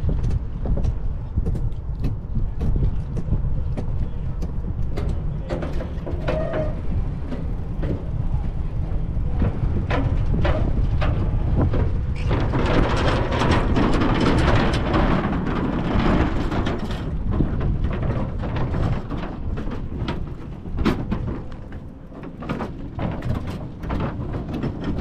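Wind rumble and rolling road noise picked up by a bike-mounted GoPro Hero 10 on the move, with frequent small clicks and knocks. Traffic noise swells into a louder rushing sound for several seconds about halfway through.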